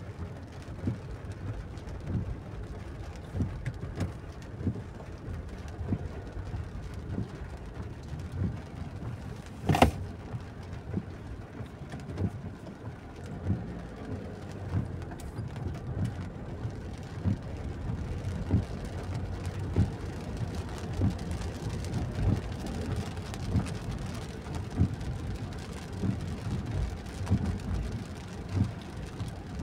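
Heavy rain drumming on a car's roof and windshield, heard from inside the cabin while driving on a wet road: a steady hiss with many irregular dull drop hits. One sharp knock about ten seconds in.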